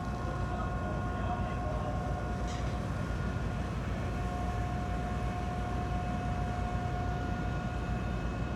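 Large car ferry's machinery running steadily during departure: a constant low rumble overlaid with a steady, even-pitched whine.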